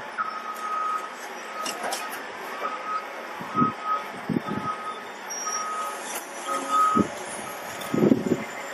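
Heavy machine's back-up alarm beeping at about two beeps a second over the machine's running noise, with several dull thumps, the loudest near the end.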